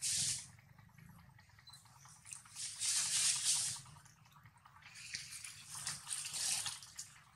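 Soft wet squishing and smacking in three bursts, as a long-tailed macaque handles mashed soft yellow fruit.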